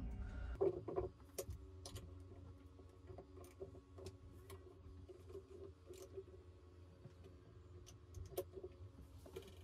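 Faint, scattered metal clicks and taps as hands handle and fit parts of a sailboat's rudder steering gear, over a low steady hum.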